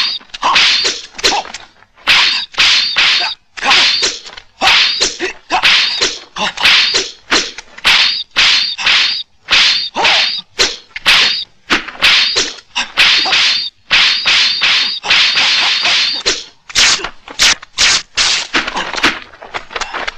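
Martial arts film fight sound effects: a rapid, unbroken run of whooshes and whacks as spears are swung and clash, several strokes a second.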